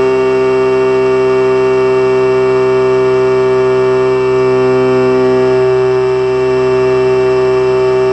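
Electric motor and propeller of an Eagle II RC trainer in flight, a steady whine heard close up from the camera on board the plane.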